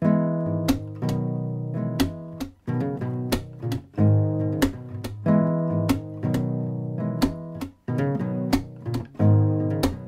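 Acoustic guitar music, chords struck at a steady beat of about three every two seconds: the programme's closing theme.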